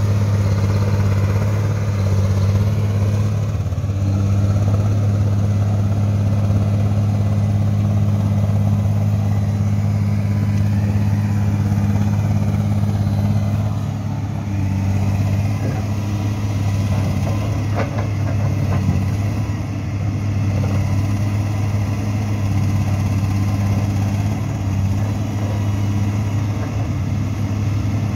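Komatsu hydraulic excavator's diesel engine running with a steady low drone while the machine digs, with a few faint knocks about two-thirds of the way through.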